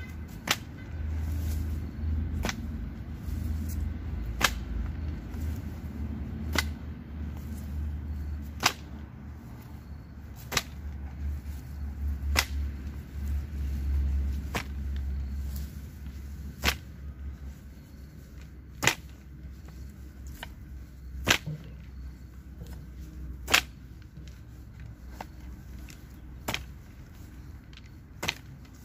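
Hoe blade striking red hill soil around a shrub's roots in single sharp chops, about one every two seconds, as the plant is dug out for replanting.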